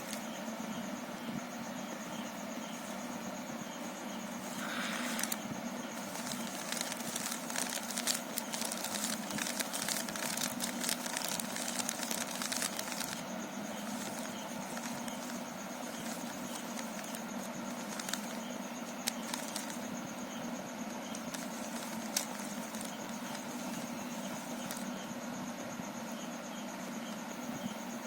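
Plastic clicking and rattling of a Rubik's cube being handled and turned: a dense run of quick clicks for several seconds, then scattered single clicks, over a steady background hum.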